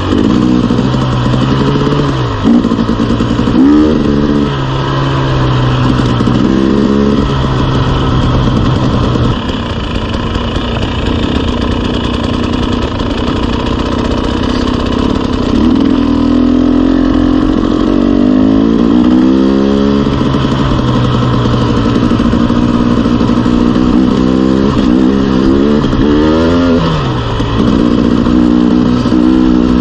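KTM 300 two-stroke enduro dirt bike engine running under the rider, revving up in several rising sweeps as the bike accelerates along the trail, with steadier stretches in between.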